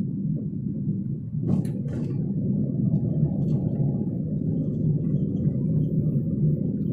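Car's engine and road noise heard from inside the cabin while driving slowly: a steady low drone, with a couple of sharp clicks about a second and a half in.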